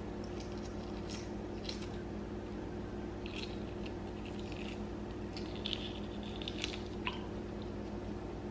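Shell of a hard-boiled egg crackling as it is cracked and peeled away by fingers, in short, irregular dry crackles. A steady low hum runs underneath.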